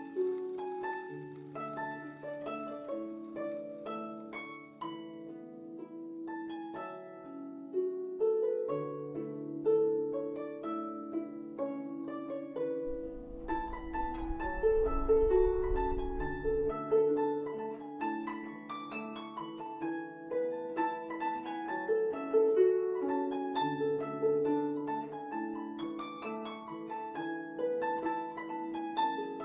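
Background music: gentle plucked-string melody over held bass notes, with a low rumble for a few seconds midway.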